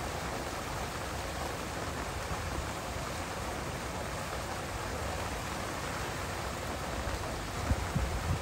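Steady hiss of falling water, with a few low bumps near the end.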